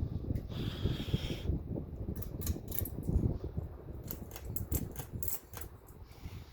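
Kmart Deluxe four-blade ceiling fan running, with a heavy low rumble that swells and dips unevenly and fades near the end. A brief higher whine comes about a second in, and a run of light clicks and ticks follows in the middle.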